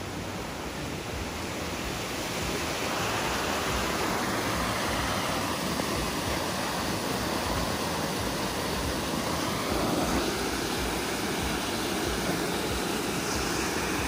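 Steady rush of a small waterfall, water sliding and splashing over rock ledges into a pool. It grows louder over the first few seconds, then holds even.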